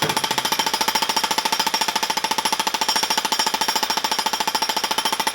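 Jackhammer breaking concrete, running continuously with a rapid, even hammering and a steady high tone under the blows.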